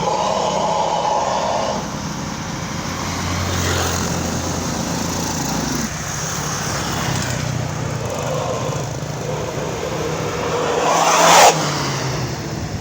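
A vehicle engine running through its exhaust with a low, rough, snoring-like note. About eleven seconds in it rises briefly in pitch and loudness, then cuts off sharply.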